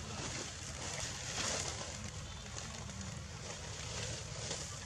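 Steady outdoor background noise: a low rumble under a faint hiss, with no distinct event.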